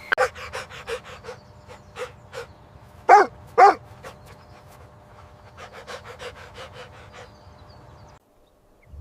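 A dog panting in quick short breaths, with two loud barks in quick succession a little after three seconds in; the sound cuts off abruptly shortly before the end.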